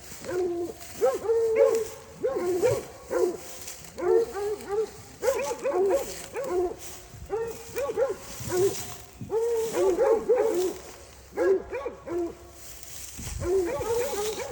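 Hog-hunting hounds and cur dogs barking and bawling over and over, the short arching calls coming in clusters.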